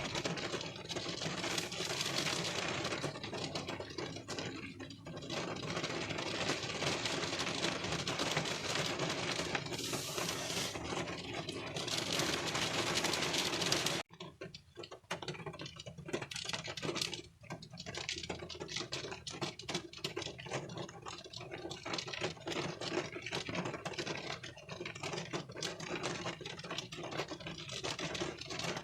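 Rain on a car windshield heard from inside the car: a dense, steady patter of drops. About 14 seconds in it cuts off abruptly and goes on as a lighter patter of separate drops ticking on the glass.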